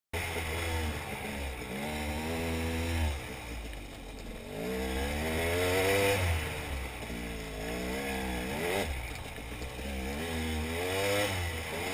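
KTM dirt bike engine under way on a trail ride, revving up and easing off several times, its pitch climbing and dropping as the throttle is worked.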